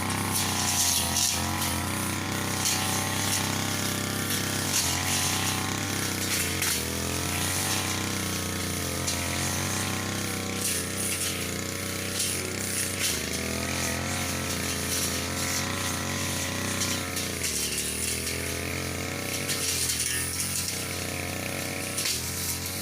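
Brush cutter engine running under load while cutting grass, its pitch wavering up and down as the blade meets the growth.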